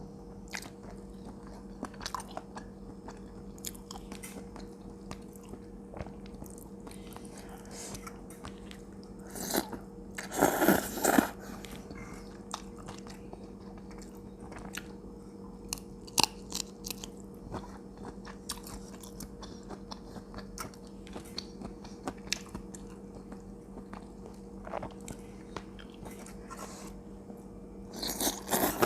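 Close-up chewing and biting of a Thai pounded cucumber and seafood salad with squid and raw vegetables: wet chewing with scattered crisp crunches, and louder runs of crunching about ten seconds in and again near the end, over a faint steady hum.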